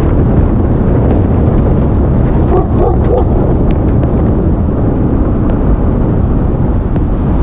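Steady loud rumble of a vehicle on the move, with a Cane Corso barking briefly about three seconds in.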